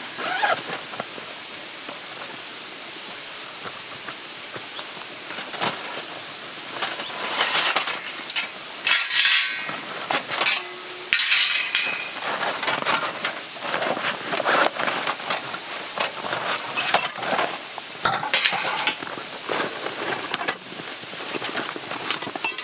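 Camp cookware and gear being handled: irregular clinks and clatters of metal, starting about six seconds in over a steady hiss.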